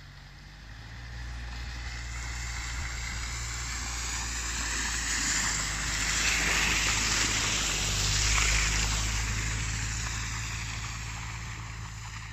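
Mercedes-AMG GLC 43's twin-turbo V6 pulling uphill, with its tyres running through snow and slush. It grows louder as the car approaches, is loudest a little past the middle as it passes, then fades as it drives away.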